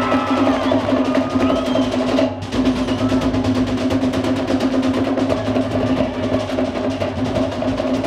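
Cook Islands drum ensemble playing a fast, driving rhythm: wooden slit drums (pate) struck rapidly over a large bass drum (pa'u) and tall skin drums. The rhythm breaks off briefly about two seconds in, then carries on.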